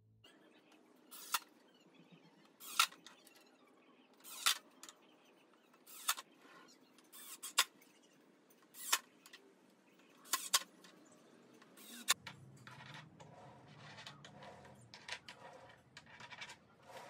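Sharp clicks and knocks of hand tools and metal castor hardware, about one every second and a half, as castor wheels are screwed onto a wooden base. After about twelve seconds a low hum and lighter ticking take over.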